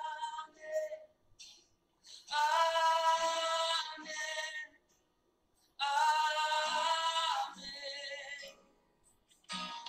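A woman singing a slow worship song without accompaniment, in two long held phrases separated by short silences.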